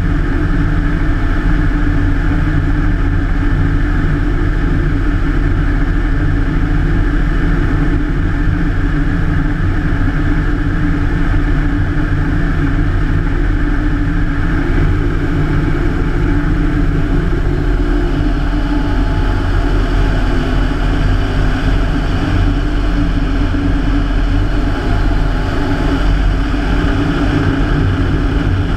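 Rotec R3600 nine-cylinder radial engine of a Hatz biplane running steadily in cruise flight, heard with slipstream wind rushing over the wing.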